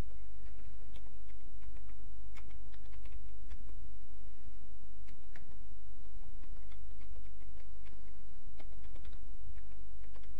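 Typing on a computer keyboard: irregular key clicks as a sentence is typed, over a steady low hum.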